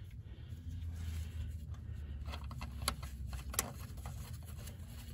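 Light metallic clicks and scrapes of hand tools and parts being handled while a suspension nut is fitted. A few sharp clicks come in the middle, the two loudest about three and three and a half seconds in, over a low steady hum.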